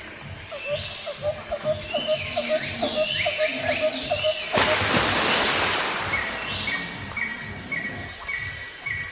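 Birds and insects chirping over a regular low beat, with a loud rush of noise about five seconds in.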